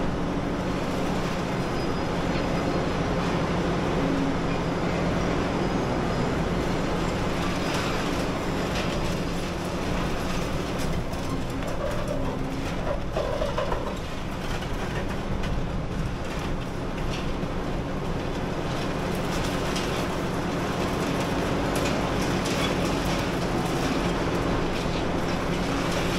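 Diesel engine of a high-reach demolition excavator running steadily under load, with irregular crunching and clattering as its hydraulic jaw attachment breaks up concrete.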